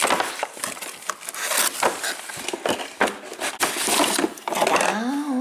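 Cardboard toy box being opened by hand: a quick, dense run of scraping, tearing and crinkling of cardboard and packaging.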